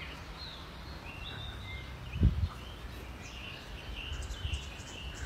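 Outdoor ambience: a steady low rumble with faint birds chirping, and one dull thump about two seconds in.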